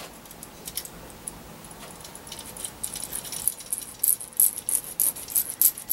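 Small metal antenna parts (rod element, bracket, strap and screws) clinking and jangling together as they are handled and fitted. Light clicks at first, getting busier from about two seconds in and loudest near the end.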